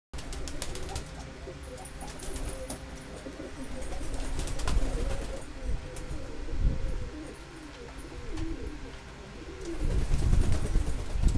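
Domestic pigeons cooing in a coop, low wavering coos that swell and fade several times, with scattered sharp clicks.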